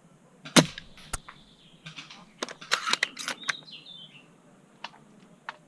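Airsoft sniper rifle gameplay: a sharp crack about half a second in, then scattered clicks and snaps, with a cluster of them around the middle.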